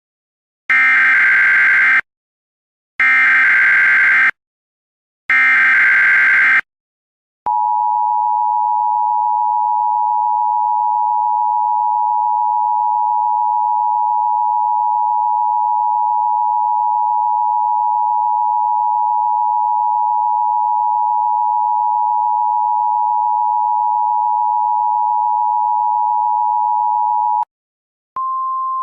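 Emergency Alert System broadcast tones: three roughly one-second bursts of the digital SAME header, then the two-tone EAS attention signal held steady for about twenty seconds. Near the end it cuts off, and after a brief gap a single steady tone begins.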